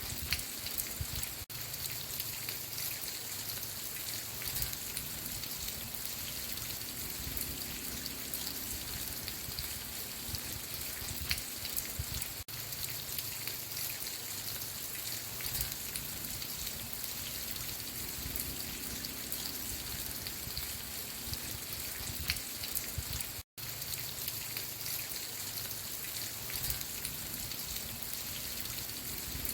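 Steady rain falling, an even hiss with scattered drop patter. It cuts out to silence for an instant about two-thirds of the way through.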